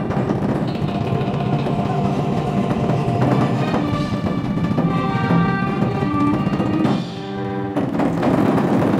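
Stage-show music playing, with drums and percussion among the instruments and held melodic notes; it dips briefly in loudness about seven seconds in.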